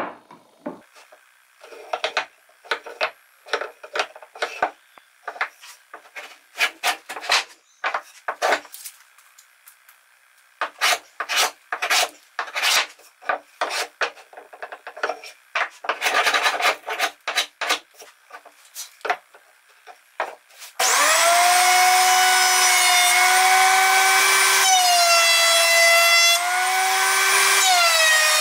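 Metal hand plane taking repeated strokes along the edge of a hornbeam board, each stroke a short scraping swish with pauses between. About three quarters of the way in, a benchtop thickness planer starts running with a loud steady whine whose pitch sags twice.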